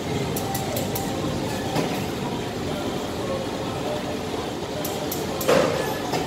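Industrial hanging steam iron being worked over fabric on a pressing table, with short sharp clicks and one louder knock about five and a half seconds in, over a steady workshop din.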